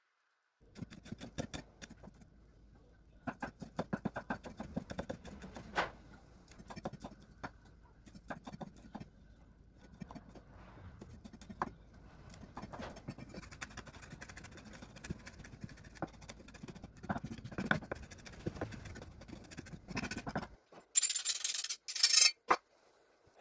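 Kitchen utensils and cookware clattering and scraping, with many irregular clicks and knocks, then two short loud hissing bursts near the end.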